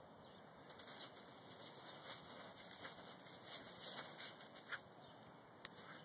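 Snow crunching and scuffing under a dog as it paws about and flops down into it, an uneven rustle with a few small clicks near the end.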